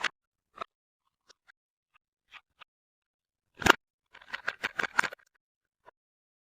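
Soap packaging being handled and unwrapped: a few scattered crackles, a single sharp knock about three and a half seconds in, then a quick run of crisp crinkling clicks lasting about a second.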